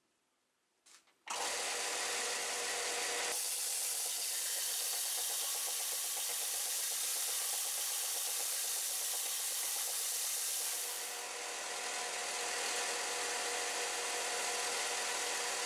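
Bench belt sander running, its abrasive belt grinding the face of a very hard steel hammer head: a steady grinding noise with a motor hum underneath, starting abruptly about a second in.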